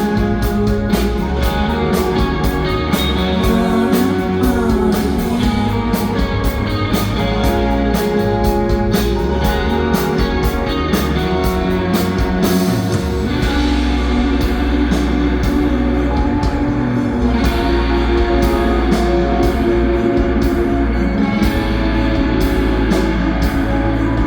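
Live rock band playing an instrumental passage: electric guitars over bass and a steady drum beat, with no singing; the texture changes about halfway through.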